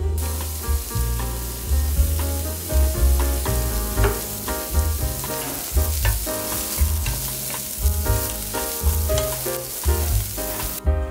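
Finely chopped broccoli sizzling in hot olive oil in a frying pan as it is stir-fried with a wooden spatula; the sizzle stops suddenly near the end. Background music with a steady bass beat plays underneath.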